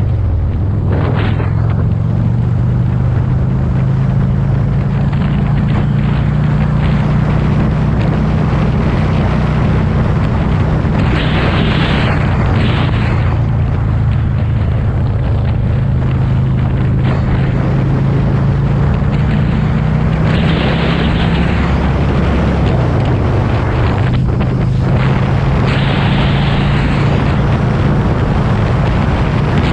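Motorcycle engine droning at a steady road speed, with wind rushing over the microphone that swells several times. The engine note shifts slightly about three-quarters of the way through.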